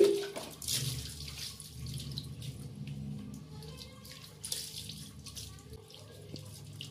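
Water splashing and trickling on a tiled floor as a soapy cat is rubbed by hand and rinsed with water poured from a mug, with a short sharp knock at the very start.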